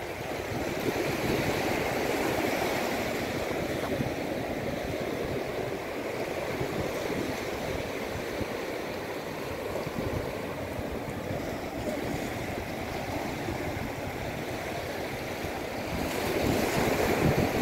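Low surf breaking and washing up a flat sand beach in a steady wash of noise, swelling louder near the end.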